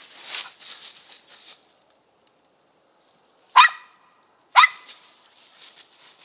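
Mountain feist squirrel dog giving two sharp barks about a second apart, head up at a tree: barking treed. Before the barks there is a second and a half of rustling in dry leaves.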